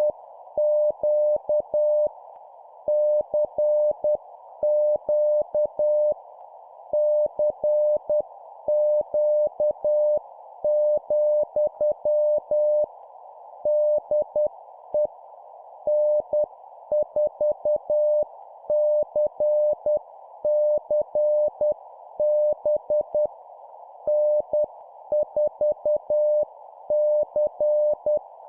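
Morse code (CW) sent at about 10 words per minute: a steady mid-pitched beep keyed on and off in dots and dashes, as in an amateur-radio CQ call and contact. A continuous narrow hiss of receiver band noise runs under the tone.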